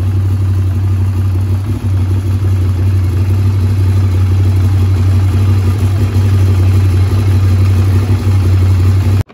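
A motorcycle engine idling steadily, an even low hum with no revving, which cuts off abruptly near the end.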